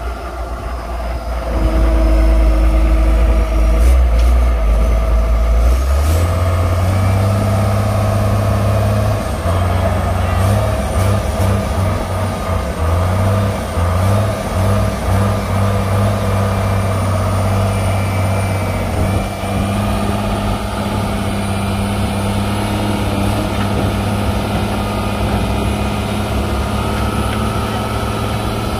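Heavy excavator diesel engines running under working load. The engine note steps up in pitch and loudness about six seconds in and then holds steady, with a thin high whine over it.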